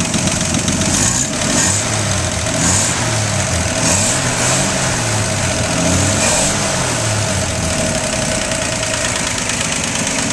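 1962 Ford truck engine running on gasoline, idling with its pitch wavering up and down a few times in the middle. Under it are a light lifter tick and a small exhaust leak, which the owner is not worried about.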